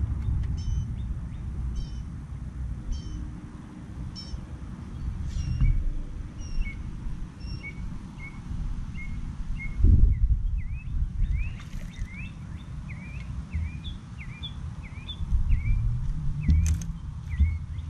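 Birds calling over a steady low wind rumble on the microphone: first short calls repeated about once a second, then from about ten seconds in a quick series of short upward-hooked chirps. A low thump about ten seconds in and a sharp knock near the end.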